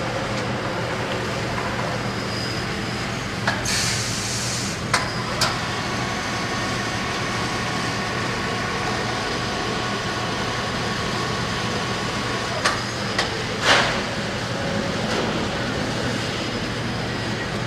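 Automated bakery production-line machinery running with a steady mechanical hum, broken by a short hiss about three and a half seconds in and another near fourteen seconds, and by several sharp clicks and clanks.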